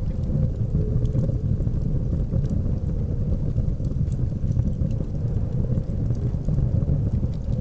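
Blizzard wind making a steady low rumble, with sparse faint crackles of a wood fire over it.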